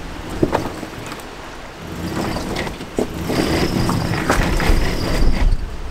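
Four-wheel-drive vehicle running over rough ground, with scattered knocks and clatter; the noise builds about two seconds in.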